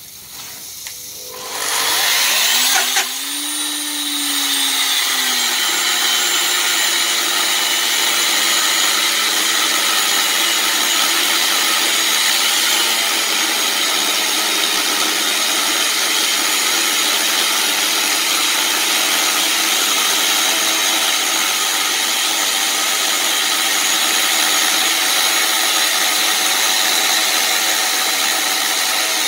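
Cardi Coccodrillo 35 diamond chainsaw coming up to speed about two seconds in with a rising whine, then running steadily as its diamond chain cuts down through a block of sodalite stone.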